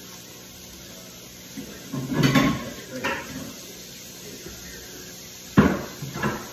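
Close-up eating sounds: chewing of crisp romaine salad, with a louder crunch about two seconds in, then a metal fork clicking sharply twice near the end as it stabs into the salad on a foil-lined tray.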